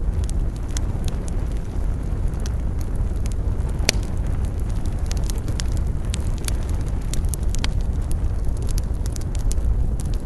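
Campfire burning with irregular crackles and pops of burning wood, one sharp pop about four seconds in, over a steady low rumble.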